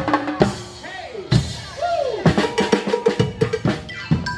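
Background music led by drums and percussion, with a steady run of hits and a few bending notes in the middle.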